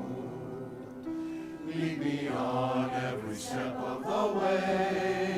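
A group of voices singing a slow hymn together in long, held notes.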